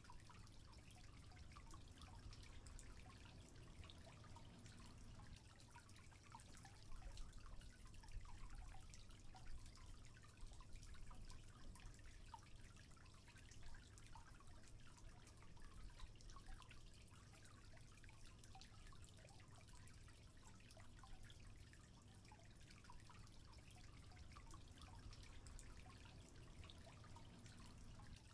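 Faint water trickling and dripping, many small irregular splashes, over a low steady hum.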